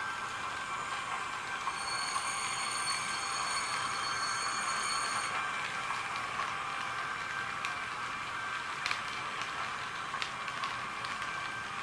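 H0-scale model train, a BRAWA E42 electric locomotive model with a sound decoder pulling passenger coaches along the track, making a steady running whirr. A high whine runs from about two to five seconds in, and a few sharp clicks come near the end.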